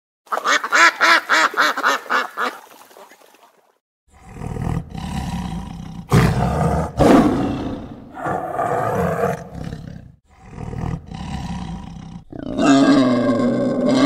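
A ruddy shelduck gives a quick run of nasal honking calls, about five a second, for a couple of seconds. Then a tiger growls and roars in several rough bouts, loudest a few seconds in. Near the end another animal starts a long, loud drawn-out call.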